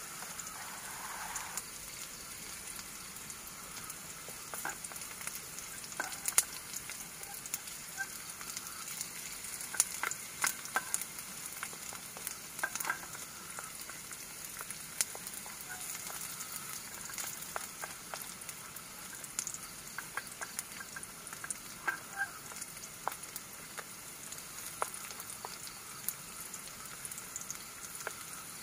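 Sliced onions sizzling in oil in an aluminium camping pot on a portable gas stove, with a wooden spatula scraping and clicking against the pot as they are stirred. The onions are being sautéed until fragrant.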